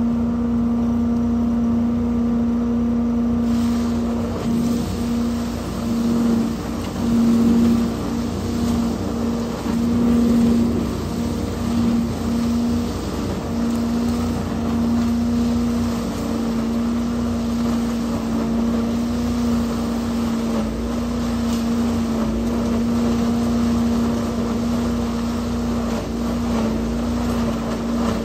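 Trailer-mounted leaf vacuum running steadily with an even engine-and-fan hum. From about three and a half seconds in, a rushing hiss joins it as leaves are sucked up the hose.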